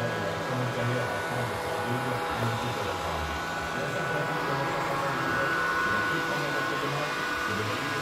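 Hoover Quest 1000 robot vacuum cleaning: a steady motor and suction whir with a constant high whine.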